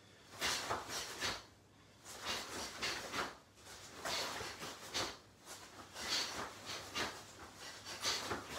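Short, forceful breaths out from two karateka punching at their own pace, about one or two a second at irregular spacing.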